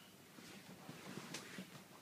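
Faint soft rustling with low breathy sounds from a curly-coated toy poodle lying with its nose pressed into a bedsheet, with one brief sharper sniff-like stroke a little past halfway.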